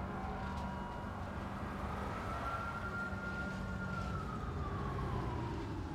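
A siren wails: one long tone climbs for about two seconds, holds, then slides slowly down to the end. It plays over the low, steady running of car engines.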